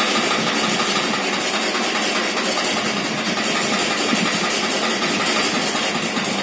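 Sewing machine on a treadle stand running steadily, stitching cloth.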